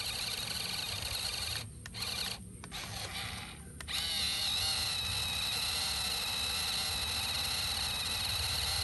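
Small electric motor and gearbox of a toy RC tractor whining. It cuts out and restarts three times about two to four seconds in, then runs steadily.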